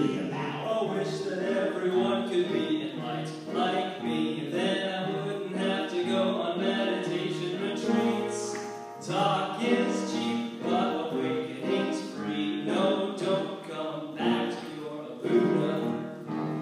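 Music with singing, the voices holding long notes.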